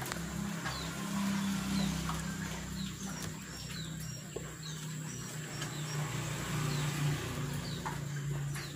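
Steady low hum of a small motor, fitting a honey suction pump drawing honey through a tube out of stingless-bee honey pots. Over it, birds chirp with short high calls every second or so.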